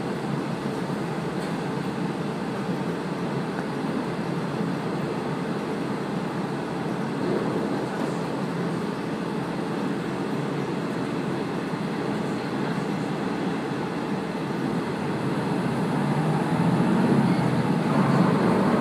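Passenger train running along the line, heard from inside the carriage: a steady noise of wheels on rails and running gear, growing louder for the last few seconds.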